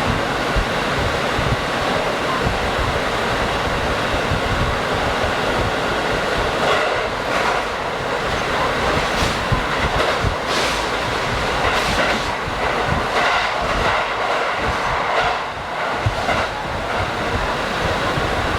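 Diesel limited-express railcar running along the line: a steady low rumble of engine and wheels, with irregular clacks of the wheels over rail joints, mostly in the middle stretch.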